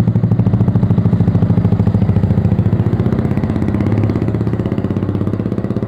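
A motorcycle engine running close by at low speed with a rapid, even putter.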